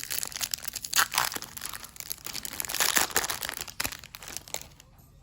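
Baseball card pack wrapper crinkling and tearing as it is opened by hand, in a run of irregular crackles that louden twice and then die down near the end.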